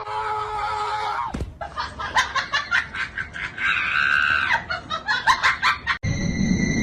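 A person laughing and shrieking in quick, rhythmic ha-ha pulses. About six seconds in it cuts off abruptly to a steady high-pitched hum.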